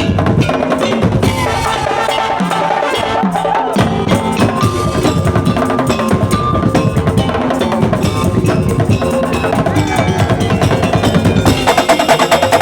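Madurese daul (tongtong) percussion ensemble playing: drums and wooden slit drums keep up a dense, steady rhythm under ringing tuned metal percussion. The playing gets fuller near the end.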